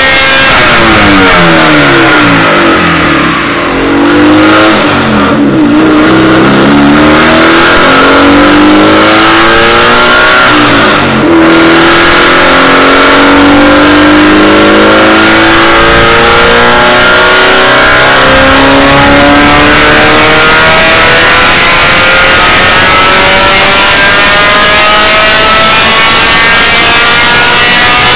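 Race car engine running loud at wide-open throttle on a chassis dynamometer during a power pull. The revs sag and pick up again about three seconds in and again about eleven seconds in, then climb steadily through one long pull.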